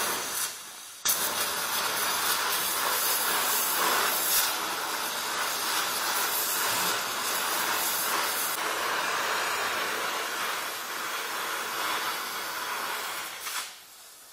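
Donmet 132A micro gas-welding torch flame hissing steadily while welding a steel pipe. There is a brief lull about half a second in, and the hiss drops away near the end.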